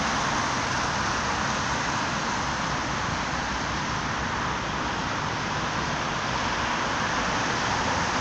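Steady traffic noise from cars running along a busy, rain-wet road.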